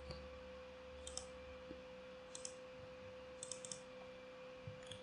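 Faint computer mouse clicks in small groups of two to four, about once a second, as number-field arrows are clicked in a web editor. A faint steady hum underneath.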